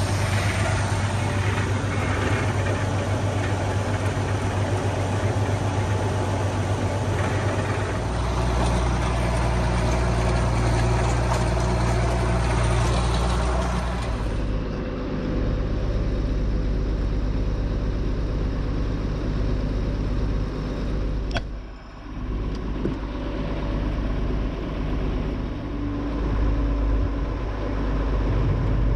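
Tractor engine running steadily, as used for chopping haylage. About halfway through, the higher whirring and hiss drop away, leaving mostly the low engine hum, and the sound briefly dips about three quarters through.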